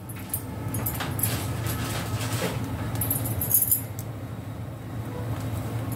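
A sandwich pressed down by hand and shifted on a flat pan as it toasts: soft rustles and a few light clicks and scrapes over a steady low hum.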